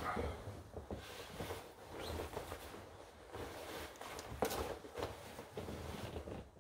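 Fabric rustling and soft irregular knocks as a person settles into a leather armchair, shifting a cushion and a dark garment over his lap.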